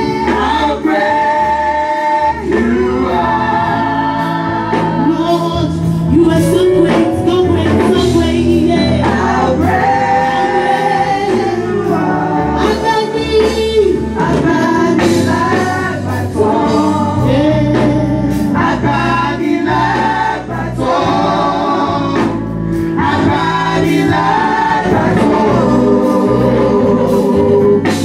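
Gospel worship music: a choir and singers with a band, bass and drums keeping a steady beat.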